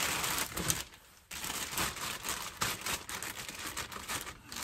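Clear plastic bag crinkling and rustling as it is handled and pulled open by hand to unwrap a new water pump, with a brief lull about a second in.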